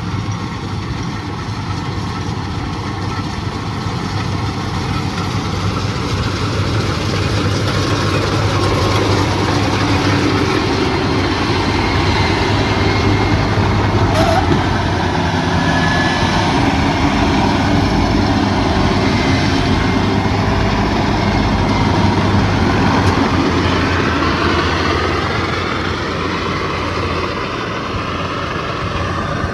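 Combine harvester running steadily with its engine and threshing machinery going, growing louder through the middle and easing off near the end.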